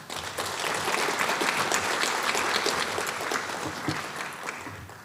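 Audience applauding: a dense round of clapping that starts at once, holds for about three seconds, then fades out near the end.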